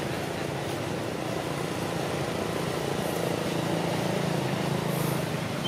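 Steady low hum of a running motor vehicle engine over a constant noisy background, swelling a little in the middle.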